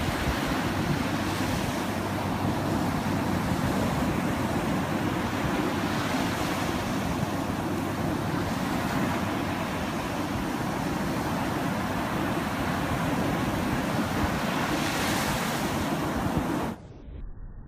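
Gulf surf breaking and washing up the sand in a steady rush, with wind rumbling on the microphone. The sound drops away suddenly near the end.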